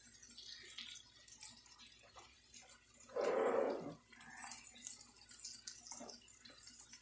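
Diced peas, carrots and onion sizzling in oil in a wok while being stirred with a wooden spatula, at a steaming rather than smoking heat. About three seconds in there is a louder sound lasting about a second.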